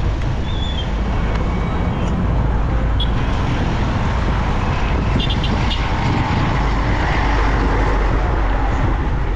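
Steady rumble of riding on a motorbike through road traffic: engine and wind noise with little change.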